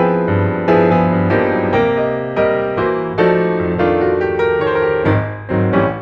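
Background piano music: soft notes and chords struck about twice a second, each ringing and fading before the next.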